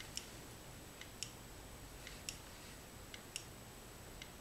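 Homemade candle-heated rotary-displacer heat engine running slowly, its mechanism clicking in a steady rhythm: a faint tick, then a louder click, about once a second.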